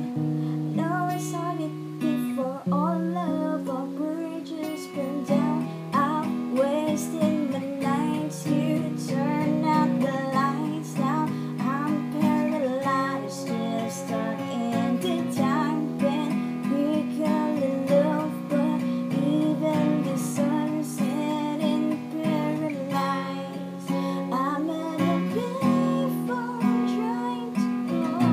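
Acoustic guitar playing an instrumental passage: strummed chords with a moving line of notes above them.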